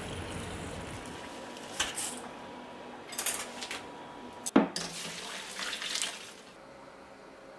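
Kitchen sounds of a steel pot: a few clinks of metal, then one sharp, loud metal knock a little past halfway. Right after it, water and cooked noodles pour from the pot into a stainless mesh strainer in the sink, stopping shortly before the end.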